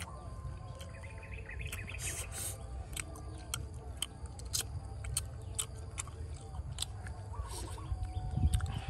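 Charred grilled fish being picked apart by hand, with many small crackles, scrapes and chewing sounds over a low steady rumble; birds chirp faintly now and then.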